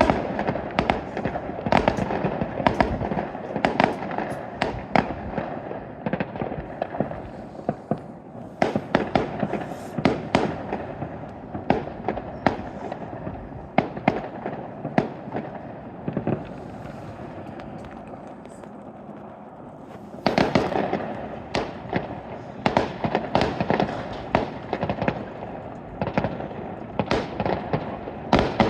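Aerial fireworks bursting: a stream of booms and crackling bangs at irregular intervals. They thin out and quieten for a few seconds past the middle, then come thick and fast again about twenty seconds in.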